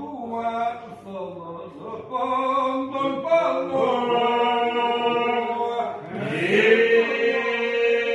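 Chanted singing in long held notes over a steady sustained tone; about six seconds in, a voice slides upward into a new held note.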